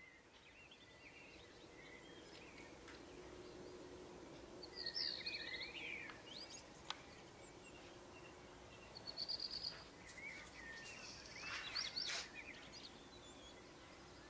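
Birds chirping in short scattered bursts over a faint steady background hiss, with the busiest calling about five seconds in, again near the middle, and about twelve seconds in.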